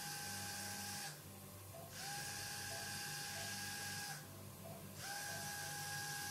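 Surgical power drill whining at high speed in bursts as holes are drilled into the side of the proximal tibia to harvest bone graft. It stops about a second in, starts again a second later, stops again about four seconds in, and starts once more near five seconds.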